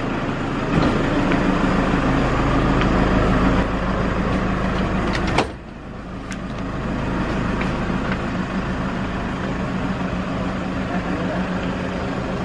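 Passenger van engine idling with a steady low hum. Its sound breaks off sharply for a moment about halfway through, then returns.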